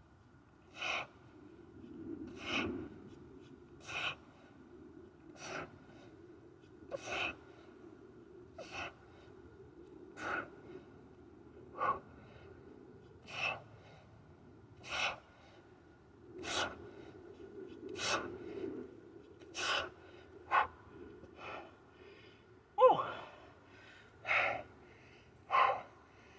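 A man's sharp, forceful breaths, one with each two-hand swing of a heavy kettlebell, about every second and a half. Near the end comes a louder breath with a short grunt in it.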